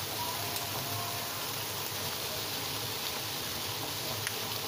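Bread round deep-frying in hot ghee: a steady sizzling hiss.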